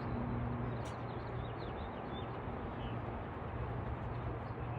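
Outdoor ambience: a steady rushing noise with a low hum beneath it, and a few faint, short, high bird chirps in the first three seconds.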